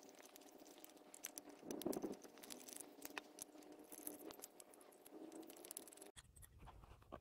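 Faint, scattered clicks and scraping of a socket wrench with a T25 star bit turning the screws that hold the sensor on an EGR valve's housing.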